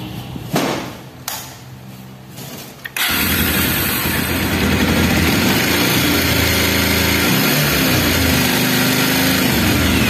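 Bajaj Pulsar 150 single-cylinder engine starting about three seconds in, then running steadily with a 'jhejha' rattle, its speed shifting a little near the end. The rattle suggests a loose timing chain, though the mechanic doubts that and traces it to a worn balancer scissor gear.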